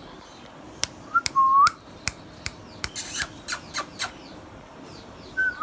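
Indian ringneck parrot whistling and making sharp clicking calls: a short whistled note about a second and a half in, a run of quick clicks and harsh chirps through the middle, and another whistle starting near the end.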